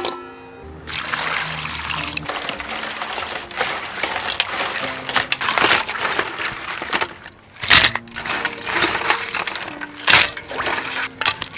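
Crabs being washed by hand in a steel basin of water: steady splashing and sloshing. There are two loud clattering splashes, about eight and ten seconds in, as the crabs go into a metal colander with water running over them.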